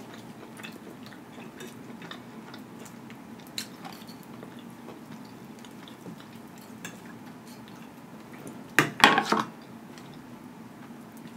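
Eating sounds: a fork clicking and scraping against a plate, with soft chewing. About nine seconds in comes a brief, louder run of sharp crackly noises as a piece of food is pulled apart by hand.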